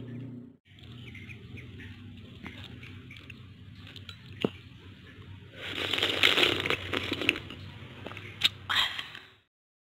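Chickens clucking in the background over a steady low hum, with a louder stretch of cackling about six seconds in and a shorter one near the end. A couple of sharp clicks are heard, and the sound cuts off about nine and a half seconds in.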